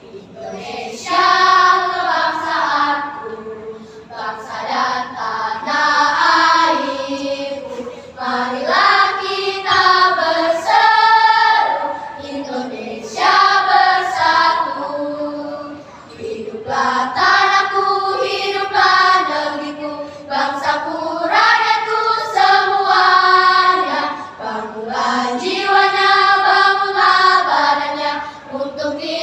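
A choir singing, many voices together in long phrases with short breaks between them about every four seconds.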